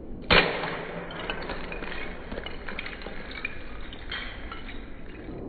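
iPhone 6S in a Lego brick case hitting concrete after a 100-foot drop: one sharp smash about a third of a second in as the case breaks apart, then Lego pieces clattering and skittering over the concrete for several seconds.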